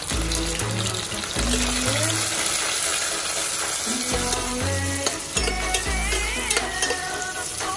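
Green beans, onion and garlic sizzling in hot oil in a stainless steel pot, stirred with a metal ladle.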